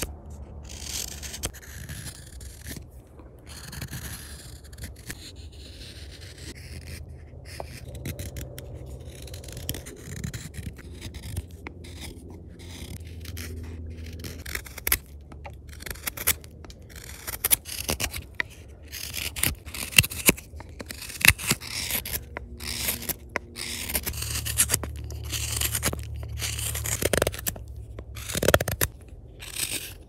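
Knife blades cutting shavings from a wooden spoon: a straight carving knife, then a hook knife scooping out the bowl. Short slicing and scraping strokes that come quicker and louder in the second half.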